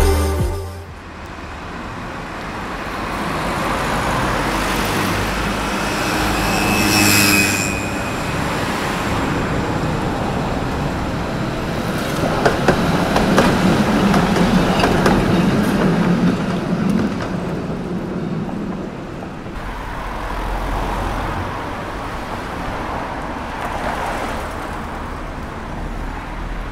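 Street traffic noise: a steady wash of road noise with vehicles swelling past, loudest about halfway through.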